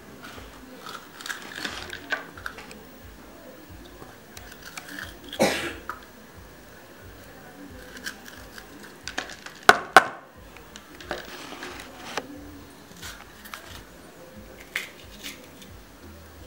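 A knife and hands working green peppers on a plastic cutting board and over a plastic bowl, making scattered light clicks and taps. There is a short louder noise about five seconds in and a sharp double knock about ten seconds in.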